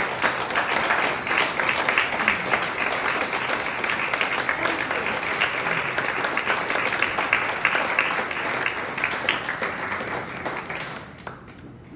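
Audience applauding, with steady clapping that fades and stops about eleven seconds in.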